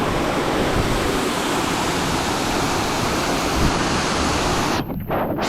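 Waterfall's steady rushing water noise, close and loud. Near the end, the higher part of the sound briefly cuts out twice, leaving only the low rumble.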